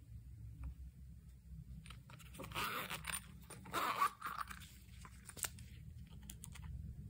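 Crunching and crinkling as something is handled by hand, with scattered small clicks and taps. Two longer rustling crunches come in the middle, and a sharp click follows.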